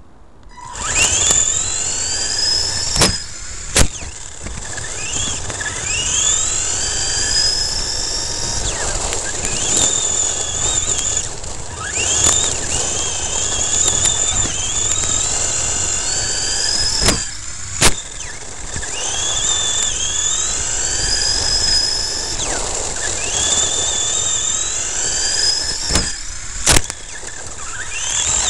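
Ansmann SC4 radio-control short course truck heard on board as it drives over gravel. The motor whine rises again and again as it accelerates, over the rush of the tyres on the stones, with several sharp knocks along the way.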